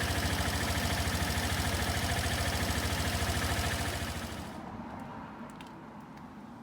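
Suzuki Address V125S scooter's single-cylinder engine idling with an even beat, then switched off about four seconds in and running down, followed by a few light clicks.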